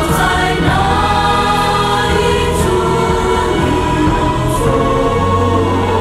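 A song with a choir singing over instrumental backing, held notes at a steady level.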